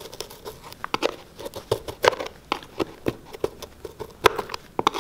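A knife blade scraping and picking caked dirt out from inside the metal cleat plate on the sole of an old baseball shoe, heard as a run of short, irregular scrapes and clicks.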